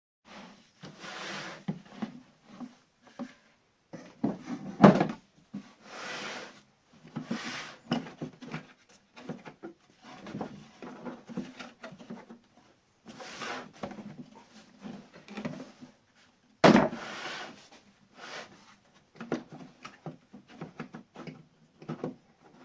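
Things being handled and moved on a workbench: irregular knocks, scrapes and short sliding sounds with pauses between them. Two sharp knocks stand out, about a fifth of the way in and again about three quarters through.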